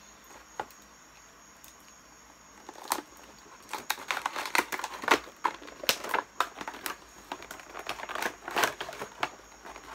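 Plastic wrapping on a makeup brush set box crinkling and crackling as it is cut open and pulled off. After a quiet start it goes in quick, irregular crackles from about three seconds in.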